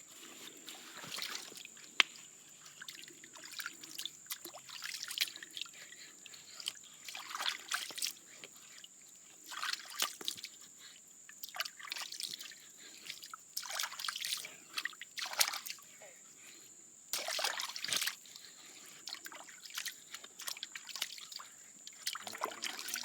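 Water splashing and trickling in short, irregular bursts as a snapping turtle's shell is washed clean of green slime, with one sharp click about two seconds in.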